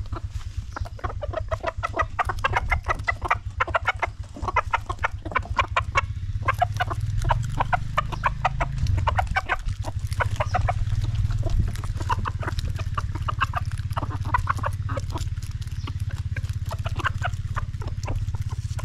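A flock of backyard chickens, hens and a rooster, clucking in a dense, overlapping chatter while feeding. A steady low hum runs underneath.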